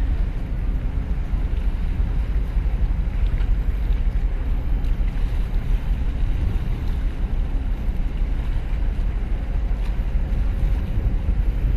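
Steady low rumble of wind buffeting the microphone, with the deep hum of a large container ship passing close by and water washing around the concrete armour blocks of the breakwater.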